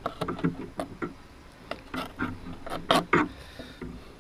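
Knife cutting strips into kahawai bait on a plastic cutting board: irregular light taps and clicks of the blade on the board, with a sharper knock about three seconds in.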